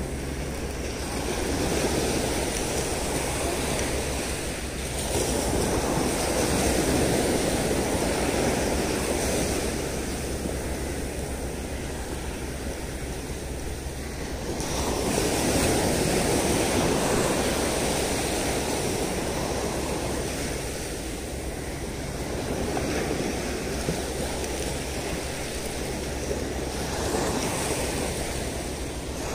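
Sea surf breaking on a sandy beach, the wash swelling and fading again several times as waves come in, over a steady low rumble of wind on the microphone.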